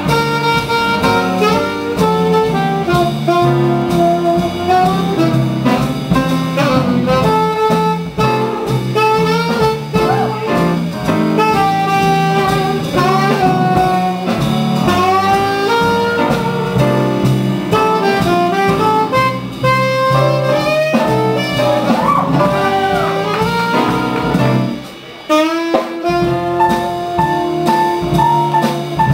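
Slow swing jazz with a saxophone lead over a steady drum beat, the music of a slow Lindy Hop round; the music drops away briefly about four seconds before the end, then picks up again.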